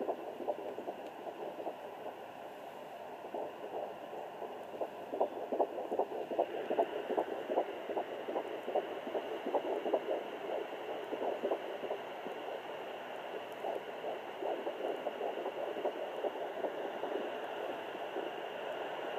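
Pocket fetal Doppler's speaker giving a steady hiss with rapid, irregular pulses as the probe is moved over the gelled belly, searching for a fetal heartbeat in early pregnancy. A higher hiss joins about six seconds in.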